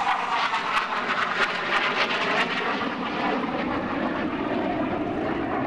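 BAE Hawk 127 jet trainer's Adour turbofan heard in flight, a continuous rushing jet noise that drops lower in pitch over the second half as the aircraft passes and pulls away.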